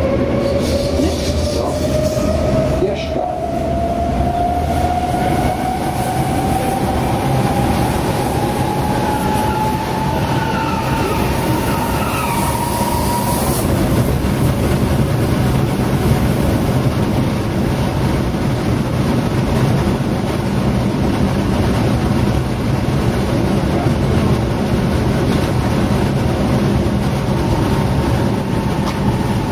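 Class 420 S-Bahn electric train heard from inside the passenger car: the motor whine climbs steadily in pitch for about the first half as the train accelerates, over a constant rumble of wheels on rails. About halfway through the whine fades, leaving the steady running noise.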